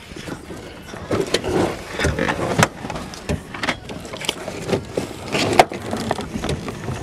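Car floor carpet being handled and pulled up by hand: rustling and scraping with a string of sharp knocks and clicks, the sharpest about five and a half seconds in.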